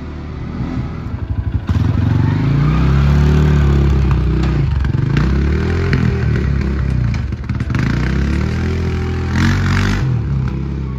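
CFMoto CForce 500 ATV engine running and revving, its pitch rising and falling. It gets louder about two seconds in, and a short hiss comes near the end.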